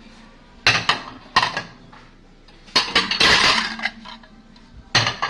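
Ceramic plates clinking and knocking together as they are lifted out of a dishwasher rack and stacked: a few sharp clinks about a second in, a longer rattle around the middle, and more clinks near the end.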